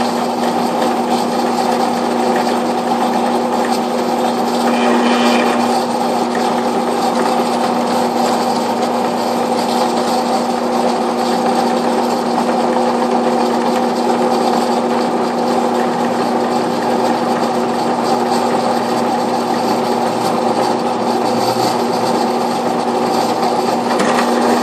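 Central Machinery 12-speed drill press running steadily with an end mill cutting into soft aluminum channel: a constant motor hum under the rough noise of the cut. The bit wobbles as it cuts, which makes the hole oversized.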